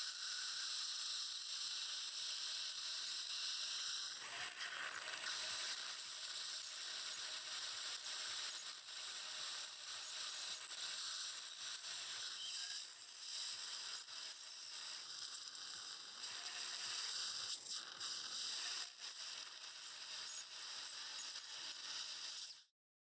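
Piezoelectric bone-surgery handpiece cutting the bony window for a sinus lift, with saline spray and surgical suction: a steady high hiss with a thin high whine and scattered small clicks. It cuts off abruptly near the end.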